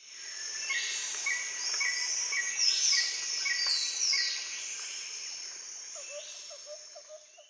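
Nature ambience of birds and insects: a steady high insect drone with birds chirping over it in a regular repeated pattern and giving several falling whistles; a lower, repeated call comes in near the end as the sound fades out.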